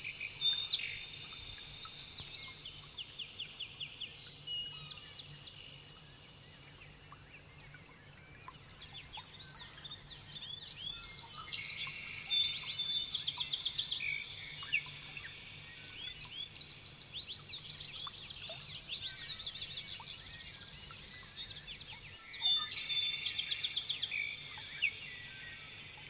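Pet lovebird chattering: rapid runs of high-pitched repeated chirps, coming in several bursts with short pauses between.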